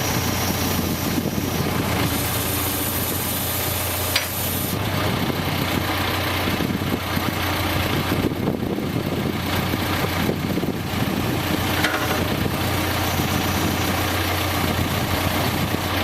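Heavy diesel engine idling steadily, with a single short click about four seconds in.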